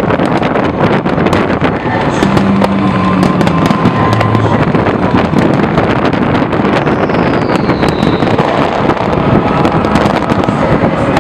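Fireworks display going off nonstop: a dense, rapid stream of cracks and pops from many shells bursting at once. A short falling whistle about seven seconds in.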